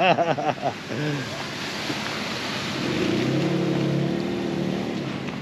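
An off-road vehicle's engine running at low revs, growing louder and slightly higher about three seconds in, over a steady rushing noise.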